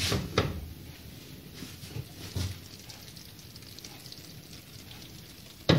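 A few light knocks of a frying pan and its glass lid being handled on a gas stove in the first couple of seconds, over a faint steady hiss of braised cabbage simmering in the pan.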